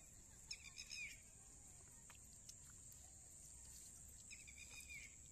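Faint outdoor ambience: a steady high-pitched insect drone, with two short bursts of bird chirps, about half a second in and again near the end.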